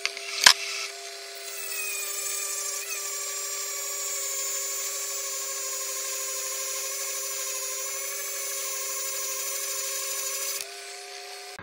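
Hand-held rotary tool's thin abrasive cut-off disc grinding into a glass test tube spinning in a lathe: a steady whine with a loud gritty hiss for about nine seconds, over the lathe's steady hum. A sharp knock comes about half a second in, and near the end the grinding stops and the tool's whine jumps higher as it comes off the glass.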